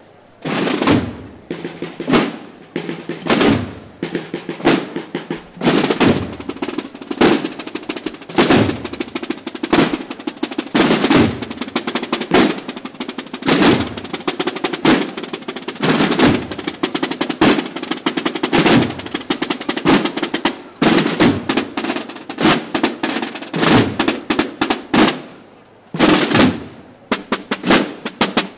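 Marching drum band playing snare drums together: fast rolls and rapid, sharp strikes in a driving march rhythm, breaking off briefly near the end before starting again.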